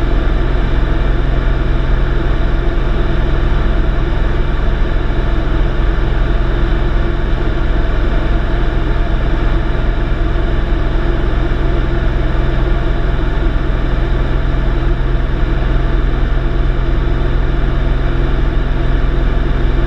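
Light single-engine airplane's engine and propeller droning steadily in flight, heard from inside the cabin.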